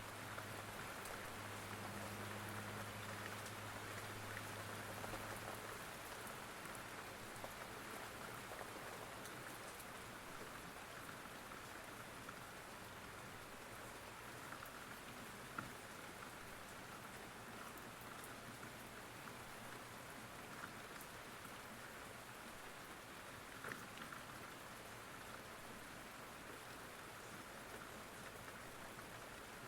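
Steady rain falling, an even hiss of drops with an occasional single louder drop.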